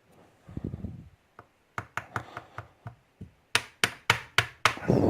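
Series of about ten sharp taps and knocks, the last five loudest, as the lock is tapped to shake a stuck pin out of its chamber. A dull low thud comes near the start and another at the end.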